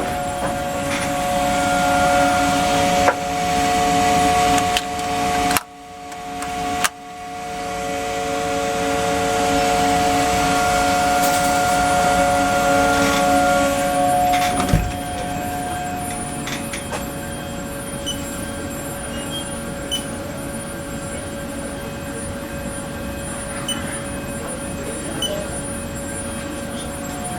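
Haas OM2A CNC milling machine running, a steady whine of several tones over a noisy haze that builds up. The haze drops out briefly twice about six seconds in. A single thump comes about fifteen seconds in, after which the machine runs quieter with faint regular ticks.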